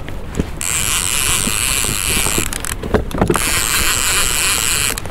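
Fishing reel running in two spells of several seconds each, a high, fine mechanical whirr, with a few knocks in the short break between them.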